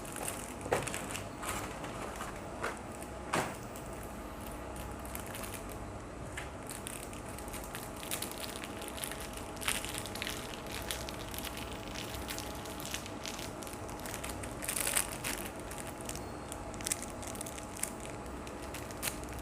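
Scattered small clicks, taps and crinkling of hands handling hard-drive mounting screws and parts, over a faint steady hum.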